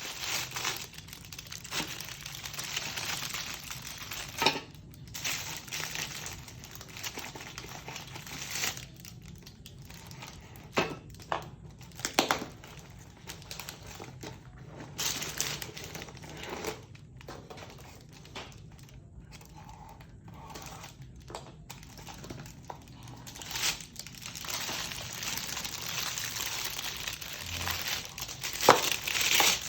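Packaging wrap being handled and pulled off a new motorcycle exhaust: irregular rustling and crinkling, with a few sharp knocks.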